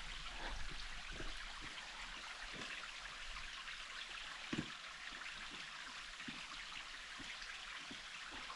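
Water of a creek or waterfall rushing steadily, with a few soft knocks scattered through, the clearest about four and a half seconds in.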